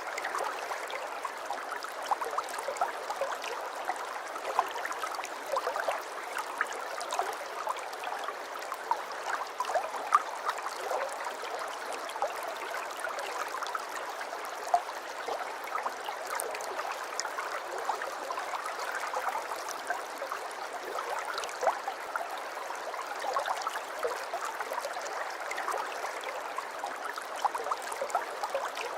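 Aquarium water trickling and bubbling steadily, with many small splashes and droplet ticks in the running water.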